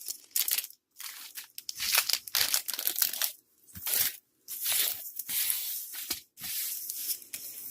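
Clear plastic cover film on a sticky diamond-painting canvas crinkling and peeling, in a run of short rustling bursts with brief pauses between them.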